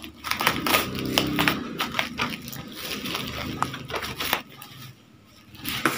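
Bubble wrap crinkling and crackling as it is pulled back and cut with scissors from a cardboard package, in quick irregular crackles. It goes quieter about four and a half seconds in, then the crackling picks up again near the end.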